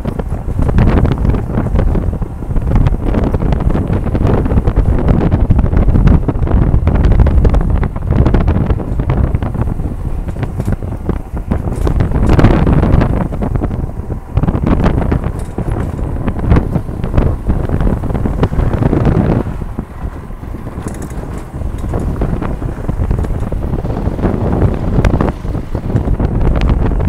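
Strong wind buffeting the microphone in gusts, a heavy low rumble that swells and eases.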